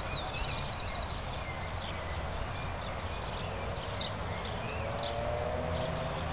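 Small birds chirping, with a quick trill near the start and scattered short calls, over steady background noise with a low rumble.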